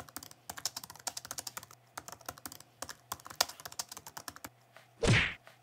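Typing sound effect: rapid, uneven key clicks as on-screen title text types out letter by letter. About five seconds in, the clicks stop and a short rushing noise swells and fades.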